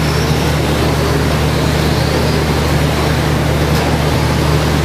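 Steady low hum and noise of a large hall, with the faint, slightly wavering whine of RC short-course truck motors racing around the track.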